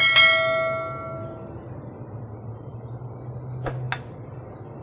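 A single bright notification-bell ding from a subscribe-button animation sound effect, ringing out and fading over about a second and a half. Two short clicks come near the end, over a low steady hum.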